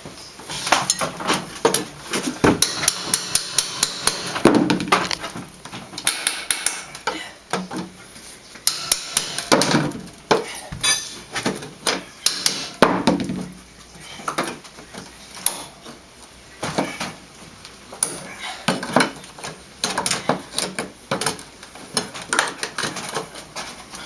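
Hammer blows, irregular and repeated, with metallic clinks, as the old entry door's frame and trim are knocked apart for removal.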